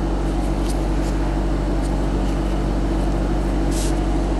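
A steady low hum with an even hiss. Over it come a few faint short swishes and ticks of trading cards being handled, the plainest a little before the end.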